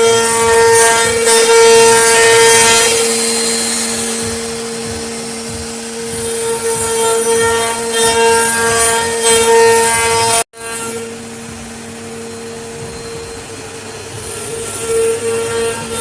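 CNC router spindle running at a steady high whine while its bit cuts wood, with a hiss of cutting noise that swells and fades. The sound cuts out for an instant about two-thirds of the way through, then resumes.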